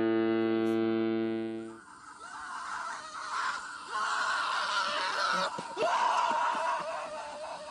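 Soundtrack of a funny-clip compilation: a single flat, held tone lasting about two seconds, then noisy, busy clip audio.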